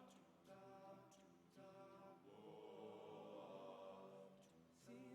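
An a cappella vocal group singing quietly: several voices hold sustained chords in harmony without words, changing chord a few times. This is the introduction before the lyrics begin.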